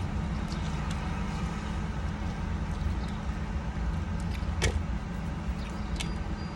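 A steady low hum throughout, with a few short sharp crunches about four and a half and six seconds in as fried chicken is being eaten.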